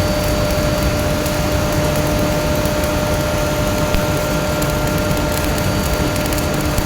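Stick (SMAW) welding arc on a pipe joint, crackling and sizzling steadily, over a steady hum.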